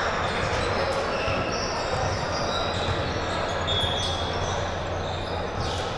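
Basketball game in a gym: a ball bouncing on the court and short high sneaker squeaks over a steady hubbub of crowd chatter in a large echoing hall.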